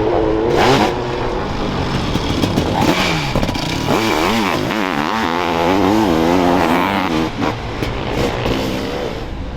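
Motocross racing engines revving hard, their pitch rising and falling quickly as the throttle is worked on and off, with more than one machine heard.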